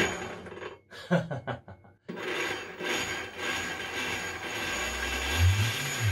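A brushless electric motor, run through an ESC by a hand-worked servo-tester throttle, spinning a large aluminium machine unit: a steady rushing whine sets in about two seconds in, and near the end its low hum rises and falls as the throttle is opened and eased off.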